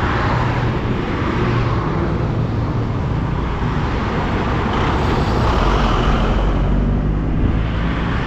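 Motorcycle engine running steadily while riding, with wind rushing over the microphone. The engine note changes a little past the middle.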